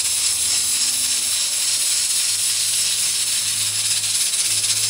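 Aluminium pressure cooker hissing steadily as steam escapes at its weighted vent while it builds up pressure.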